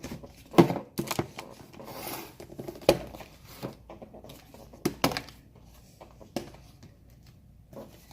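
Handling noise: about six sharp clicks and knocks with some rustling, as things, most likely plastic slime tubs, are picked up and set down.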